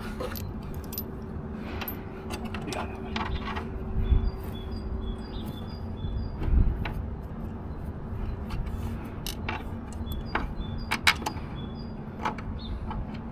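Scattered metallic clinks, rattles and knocks of hand tools and metal parts being handled during truck reassembly, with two heavier thumps about four and six and a half seconds in, over a steady low hum.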